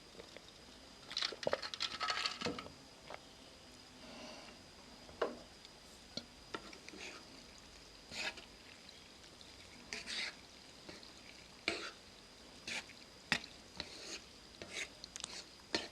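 Utensils handling noodle soup: stirring and wet squishing with soft clicks against the dish. A cluster of sounds comes about a second in, then single light clicks every second or so.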